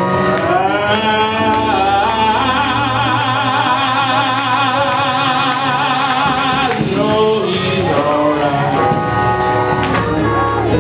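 A male preacher whooping: his voice breaks into song, sliding up and holding one long note with heavy vibrato for about five seconds, then shorter sung phrases near the end, over steady instrumental backing.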